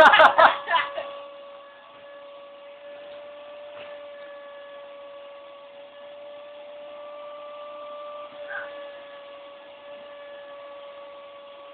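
A new vacuum cleaner running with a steady motor whine. The first second holds a brief loud burst of other sound.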